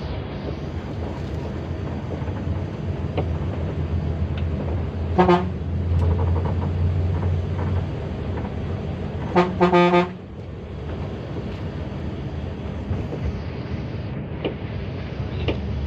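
ALS intercity bus sounding its horn: one short blast about five seconds in, then three quick blasts just before the ten-second mark, over the steady low drone of the bus running on the road.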